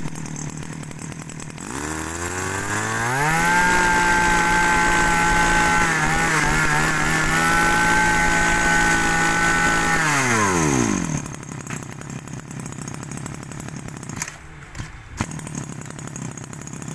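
Maruyama 32cc two-stroke brush-cutter engine running: it idles briefly, is revved up to a steady high speed held for about seven seconds with a short wobble midway, then drops back to a rough idle.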